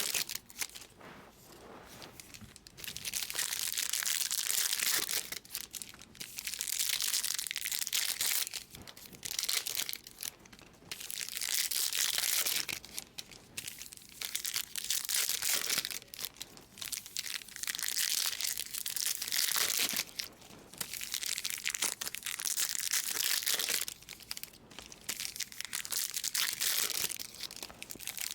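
Trading card pack wrappers being torn open and crinkled, in repeated bursts every few seconds.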